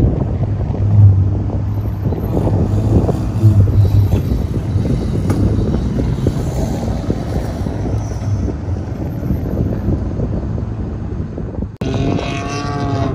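Vehicle engines running under wind buffeting the microphone. Near the end the sound cuts out briefly, then a sound with a wavering pitch comes in.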